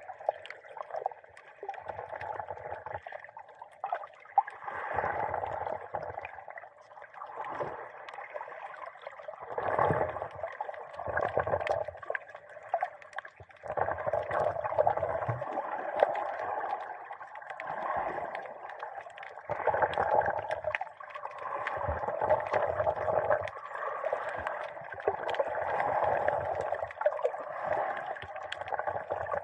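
Muffled underwater sound heard through a camera's dive case: water sloshing and gurgling around the housing. It swells and fades every second or two, with deeper surges and scattered sharp clicks.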